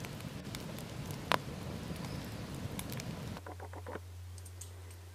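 Wood campfire burning, crackling with scattered sharp pops. About three and a half seconds in it cuts off abruptly to a faint, steady low hum.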